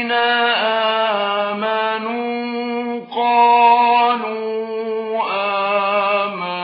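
A man chanting Quran recitation in the melodic mujawwad style: a single voice holding long, ornamented notes that glide between pitches, with a brief pause about three seconds in.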